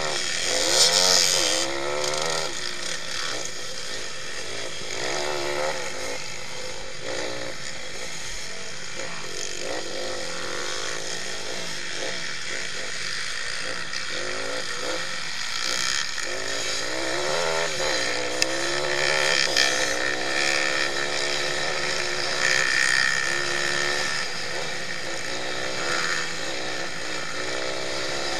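Pit bike engine revving hard, its pitch climbing and dropping over and over through the gears, heard close up from the bike itself with other bikes running around it.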